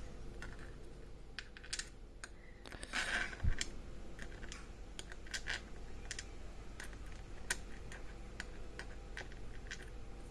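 Small metal lock parts, the discs and spacers of an Axa Clinch disc-detainer padlock, clicking and tapping lightly as they are worked out of the opened lock. Scattered light clicks, with a louder cluster about three seconds in.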